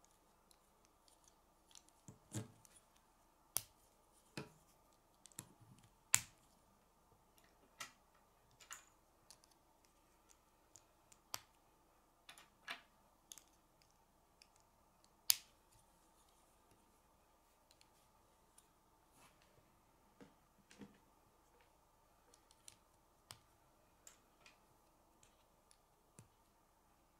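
Plastic K'nex rods and connectors clicking and snapping together as they are handled and fitted by hand: irregular sharp clicks, the sharpest about six and fifteen seconds in, thinning out in the second half.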